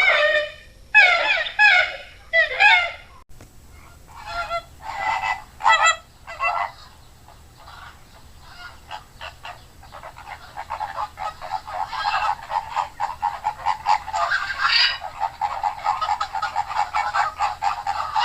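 Great blue windrunner creature calls, a sound effect from the programme: a few separate calls, then after about three seconds a change to scattered calls that thicken into many overlapping calls, like a flock, from about ten seconds on.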